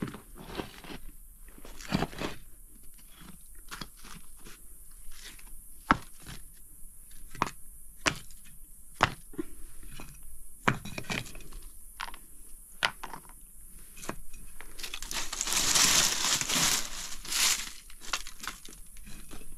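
Dry leaves and sticks crunching and snapping in scattered handfuls as a campfire site is cleared up, with a longer rustling hiss about fifteen seconds in.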